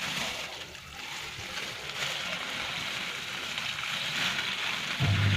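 Water running and splashing with a steady hiss. Near the end a low, steady motor hum starts abruptly.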